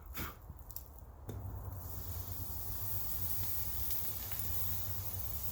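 Steady hissing of a blacksmith's forge with a low hum beneath, setting in about a second in, while a folded wrought-iron billet is heated and fluxed for forge welding.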